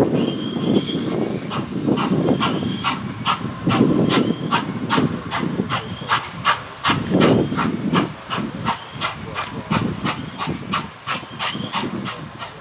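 Norfolk and Western J-class 4-8-4 steam locomotive 611 passing slowly under steam: a steady hiss with an even, sharp beat about three times a second.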